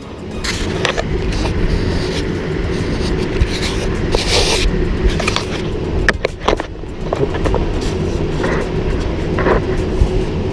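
Irregular knocks, clicks and rattles of handling and tool work under a car, over a steady low hum.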